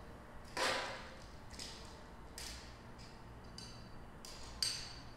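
Scattered short scraping and clinking strokes of hand-work on steel square tubing, with a faint metallic ring; the loudest stroke comes about half a second in and a sharper one near the end.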